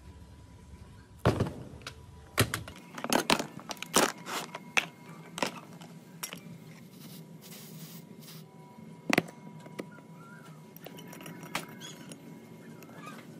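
Clinks and knocks of dismantled chainsaw parts, metal and hard plastic, being handled and set down on a workbench. A quick run of sharp hits comes in the first half, one louder knock follows a little past the middle, then lighter clicks.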